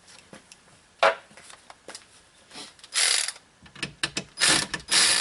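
10 mm socket ratchet loosening a battery-cable nut. There is a single sharp click about a second in, then quick ratchet clicks that run into continuous ratcheting near the end.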